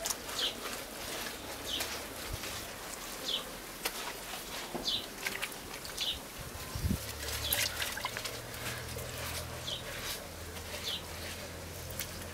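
Wet mud being smeared and smoothed by hand on the rim of a clay stove, giving soft wet squelches and small clicks. A bird chirps briefly at intervals of about one to two seconds, and a low hum starts about halfway through.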